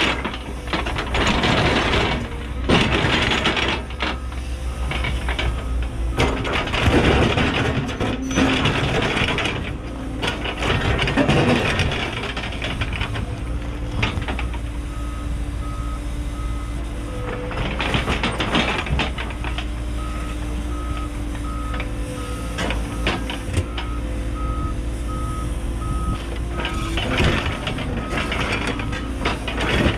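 Cat 314E excavator's diesel engine running while its single-shank ripper tears into extremely hard bedrock, with cracking and scraping of rock. From about halfway, the machine's travel alarm beeps about twice a second while it moves, and the ripper grinds into rock again near the end.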